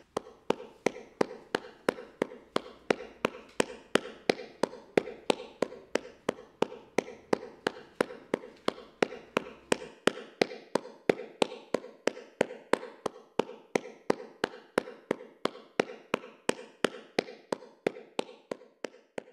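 Steady, evenly spaced tapping, about three taps a second, running on without a break. A faint low hum under it stops about halfway through.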